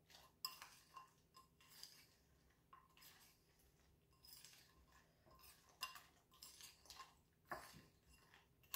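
Metal spoon stirring chicken pieces in sauce in a bowl: faint, irregular clinks and scrapes of the spoon against the bowl, coating the chicken.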